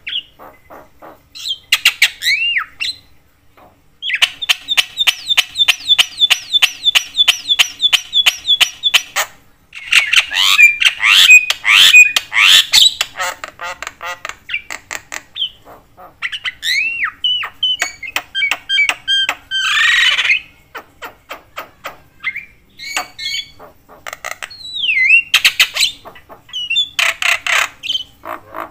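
Javan myna calling loudly and almost without pause. Harsh squawks and chatter are mixed with whistled notes that slide up and down in pitch, and there is a fast run of repeated notes from about four to nine seconds in.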